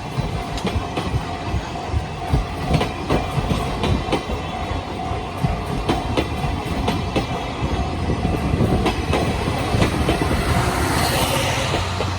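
Passenger train coaches rolling past close by, their wheels clacking in a regular rhythm over the rail joints, over a steady rumble.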